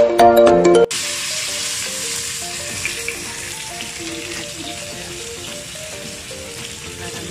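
Background music for about the first second, then a salmon fillet sizzling in hot oil in a frying pan, with quieter music underneath. The sizzle slowly grows fainter.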